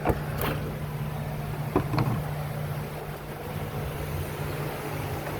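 A few light clicks and knocks in the first two seconds as the plastic air intake tubing is worked loose and handled, over a steady low hum.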